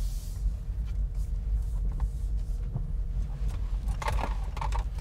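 Steady low road and tyre rumble inside the cabin of a Hyundai IONIQ Electric driving on a wet road, with no engine sound. A faint steady whine runs through the first few seconds, and a short cluster of clicks and crackles comes about four seconds in.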